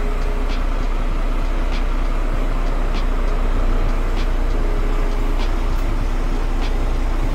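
Lorry engine idling steadily, with a faint regular click about once a second.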